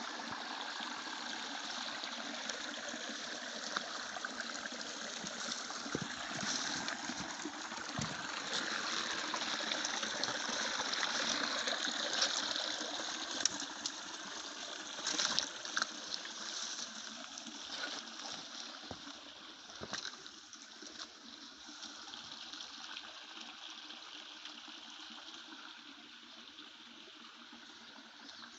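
Water of a waterfall stream running steadily, with a few short knocks. It grows fainter over the second half.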